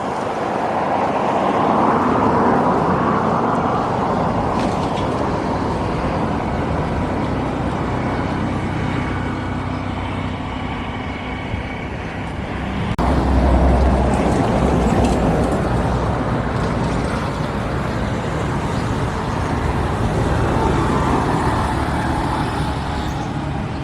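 Vehicle engine running amid road traffic noise. About halfway through the sound changes abruptly and a low rumble briefly grows louder.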